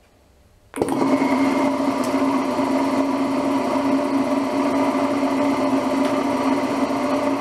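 Craftsman air compressor's electric motor and piston pump switching on about a second in and running steadily, a loud, even mechanical hum and chatter on its first start-up after being salvaged and rigged to fill a separate tank.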